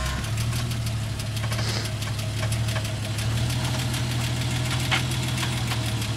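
Jeep engine running steadily at low revs, a constant low hum.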